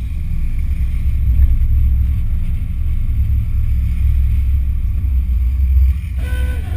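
Low, steady rumble of a classic car driving at cruising speed, engine and wind noise heard from its hood. About six seconds in, a higher sound with a few steady pitches joins.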